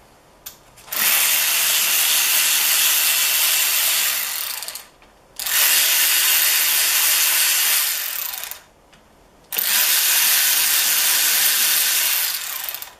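Cordless power tool spinning out the 8 mm bolts on the clutch-side cover of a Yamaha YZ125 two-stroke engine, in three runs of about three to four seconds each with short pauses between.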